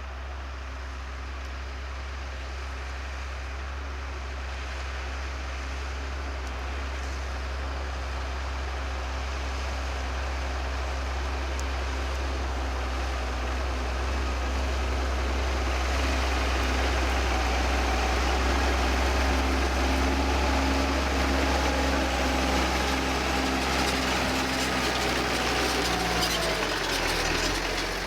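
New Holland tractor's diesel engine working under load on the plough, growing steadily louder as it approaches. Near the end the engine note drops.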